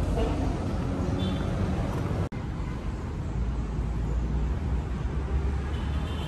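Steady low rumble of outdoor city traffic, with a momentary cut-out about two seconds in.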